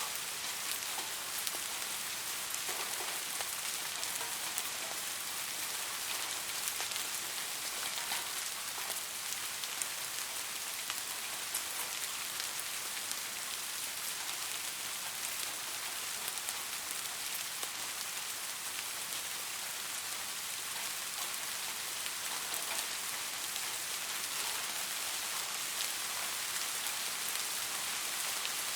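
Soft, steady rain falling on a surface: a continuous hiss with many fine drop ticks.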